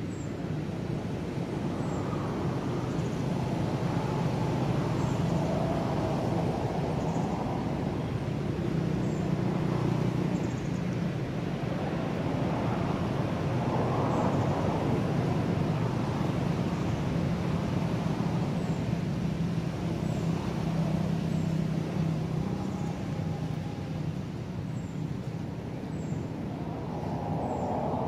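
Steady low rumble with a hum, swelling about halfway through and again near the end.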